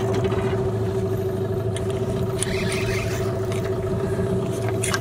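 A small boat's motor running steadily at one pitch, a constant hum with a whine over it, with a few light clicks and knocks near the middle and end.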